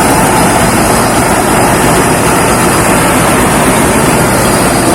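Thai Seng 'Chao Phayu' rice combine harvester running steadily, a loud continuous engine and machinery noise.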